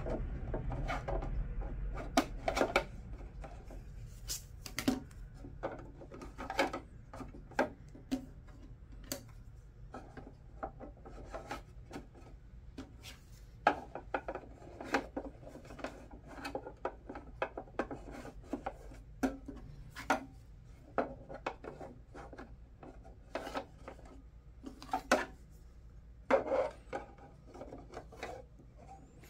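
Plastic divider inserts being slid into the slots of a plastic organizer caddy: irregular scraping of plastic on plastic with many sharp clicks as panels seat.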